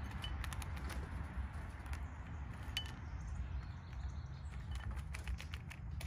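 Steller's jay picking through in-shell peanuts in a clear plastic bowl: a run of light, irregular clicks and rattles as its bill knocks the shells against each other and the bowl, with a couple of short high squeaks, over a low steady rumble.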